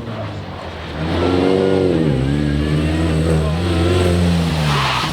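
Rally car engine revving hard under acceleration: the note climbs, drops sharply a little after two seconds in as the driver lifts or changes gear, then holds high to the end.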